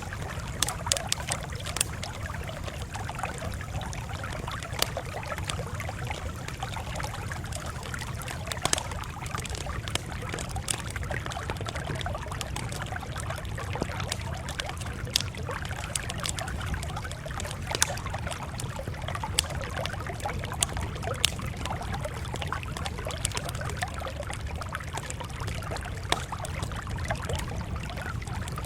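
Campfire crackling: a steady low rumble of burning wood with frequent sharp pops and snaps at irregular intervals.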